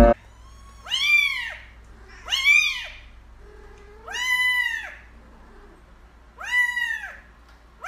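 Kittens meowing: three high calls that rise and fall in pitch, with a lower, softer call between the second and third.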